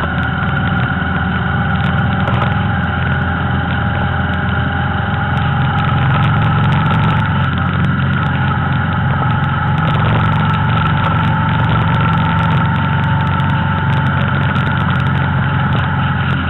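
Motor vehicle running at a steady cruising speed: a low, even engine drone with road noise and no change in pace.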